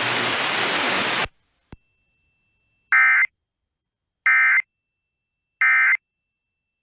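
NOAA Weather Radio static hiss that cuts off with a click about a second in. Then come three short, identical bursts of warbling digital SAME data about 1.3 s apart: the Emergency Alert System end-of-message code that closes the severe thunderstorm warning broadcast.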